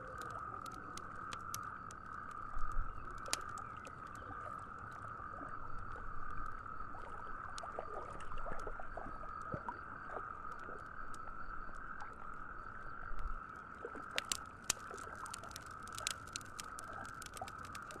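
Campfire crackling, with sharp pops scattered through and coming thicker near the end. Under it runs a steady high-pitched animal chorus.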